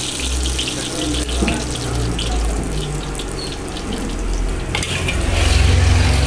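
An egg frying in hot oil in an iron wok, sizzling and bubbling steadily over a low rumble. A metal spatula touches the wok once about five seconds in.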